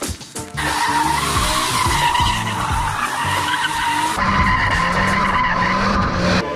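BMW E46 M3 drifting: its tyres squeal in one long, steady screech over the engine, starting about half a second in.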